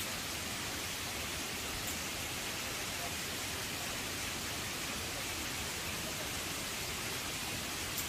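Steady rushing of a stream cascading over rocks below a waterfall: an even hiss that does not change.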